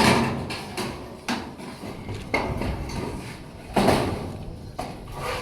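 Metal clanging: about four heavy strikes on steel, irregularly spaced a second or so apart, each ringing out and fading.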